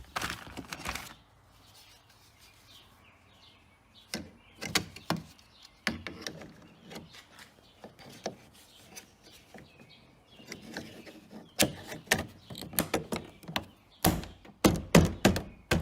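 A plastic trim bezel being handled and fitted onto the door: scattered clicks and light rubbing, then a quick run of sharp clicks and snaps near the end as it is pressed into place.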